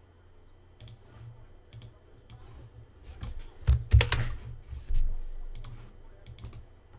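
Typing and clicking on a computer keyboard, scattered clicks with a cluster of louder knocks and thuds about halfway through.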